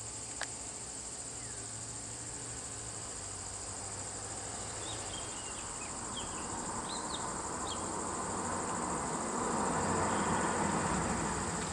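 Steady high-pitched drone of insects in roadside forest, with a few short bird chirps around the middle. A minibus drives up slowly, its engine and tyres growing louder through the second half.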